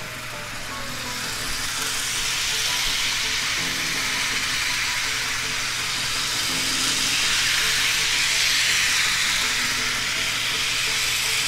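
Life-Like Santa Fe Flyer HO scale train running around the track: a steady rushing hiss of the locomotive's motor and the wheels on the rails that grows louder over the first few seconds as the train comes near and eases near the end.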